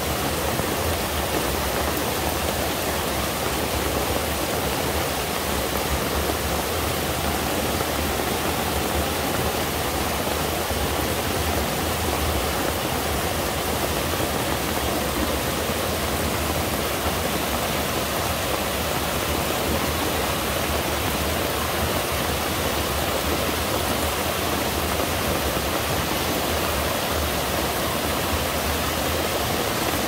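Mountain stream pouring down a small two-tiered cascade over boulders: a steady, even rush of water.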